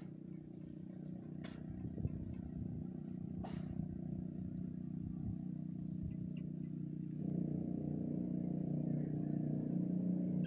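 An engine running steadily, its low hum getting louder about seven seconds in.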